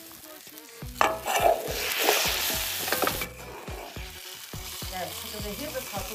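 Metal ladle scraping and knocking in a hot wok as pieces of cured pork are lifted out. About a second in there is a loud sizzle that lasts about two seconds, then the knocks and scrapes go on more quietly.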